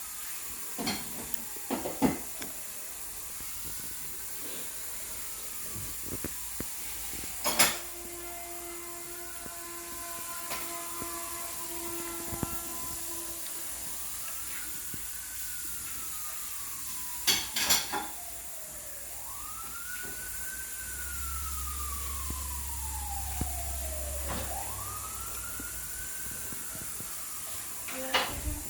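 An emergency vehicle's wailing siren, its pitch slowly rising and falling over a few seconds at a time, over a steady hiss, with a few sharp knocks and clicks.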